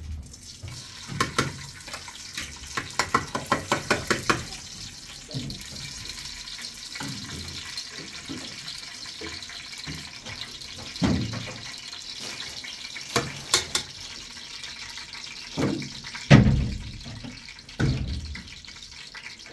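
A spoon scrapes and taps quickly against a bowl as its contents are poured into a cooking pot, then cookware knocks and clatters on a gas stove a few times, over a steady hiss.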